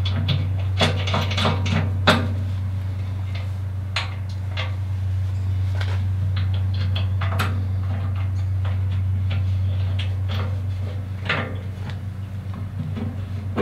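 Light metallic clinks and taps of steel hardware (bolts, lock washers and nuts) being fitted by hand to hook plates on a compact tractor's steel loader bucket, a quick cluster of them about a second in and scattered clicks after. A steady low hum runs underneath.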